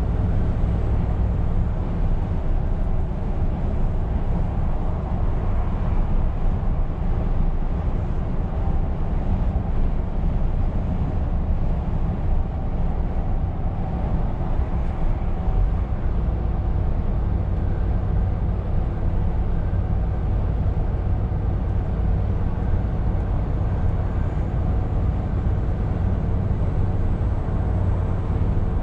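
Scania R520 truck cruising on a motorway, heard from inside the cab: a steady low engine drone mixed with tyre and road noise.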